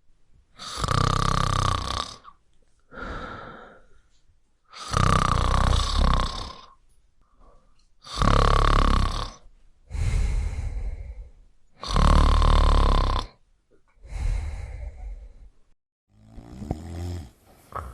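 Loud snoring: four long snores spaced about four seconds apart, each followed by a quieter, shorter breath.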